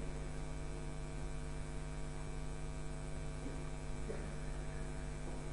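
Steady electrical mains hum: a low, even drone with many evenly spaced overtones.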